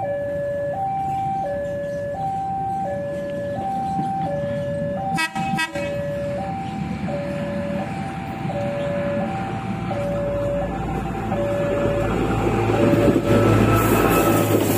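Railway level-crossing alarm sounding a two-tone signal, alternating high and low about once every 1.4 s, with a brief break about five seconds in. In the last few seconds a diesel commuter railcar draws close, and its engine rumble and wheel noise rise under the alarm.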